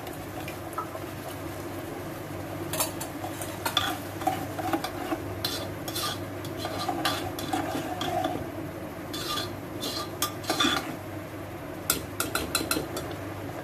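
Steel ladle stirring thick gravy in a pressure cooker pan, with sharp clinks and scrapes of the ladle against the pan at uneven intervals over a steady low hum.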